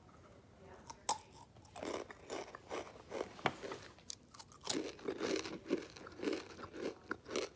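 Crunching and chewing of a rolled Takis Blue Heat tortilla chip, a string of irregular crisp crunches as it is bitten and chewed, close to the microphone.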